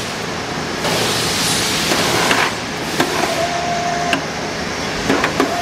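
Dainichi DMG-16 engine lathe: a sharp click about three seconds in, then the rapid-traverse motor whines on one steady pitch for about a second until another click cuts it off, with more clicks of the control levers near the end. A steady rushing noise lies under it throughout.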